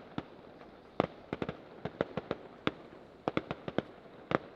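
Distant aerial fireworks bursting: an irregular string of over a dozen sharp pops and bangs, some in quick clusters.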